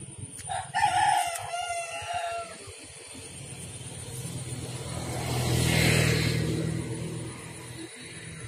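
A rooster crows once, a single call of about two seconds starting about half a second in. Then a vehicle passes, its sound swelling to a peak and fading away over about three seconds.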